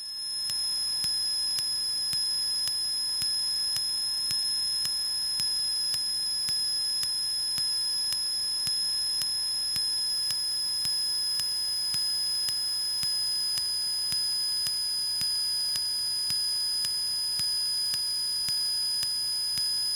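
A steady, high-pitched electronic tone with a faint tick about once a second, held unchanged for the whole stretch.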